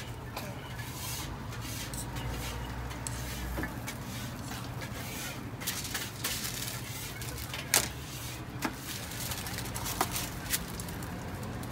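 Flat-top griddle at a toast stall giving a steady hiss over a low hum, with a few sharp clicks of metal tongs in the last few seconds.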